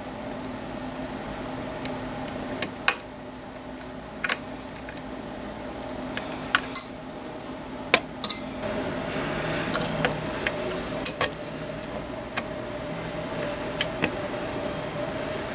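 Irregular small metal clicks and taps as a steel punch is worked through a Saiga 12 shotgun's magazine release to push out its setting pin, over a steady low hum.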